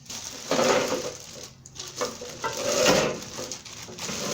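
Metal barbecue grill parts clattering and rattling as they are handled and lifted out of their packaging.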